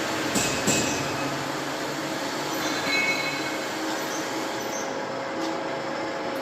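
Homemade profile-pipe bender running, a steady mechanical noise with two sharp clicks early on and brief high metallic squeals a few seconds in.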